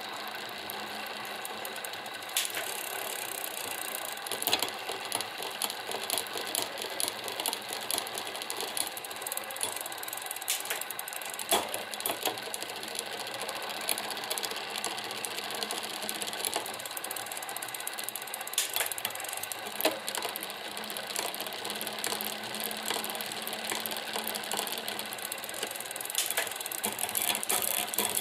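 Tern Verge P20 bicycle drivetrain turning, with a fast, steady rattle from the derailleur that began after the bike was cleaned; now and then a sharper click stands out.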